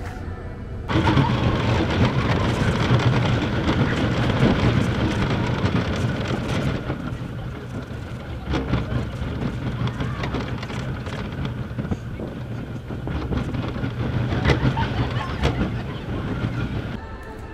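Roller coaster train rattling along its steel track, heard from on board: a steady low rumble with scattered clacks. It starts abruptly about a second in.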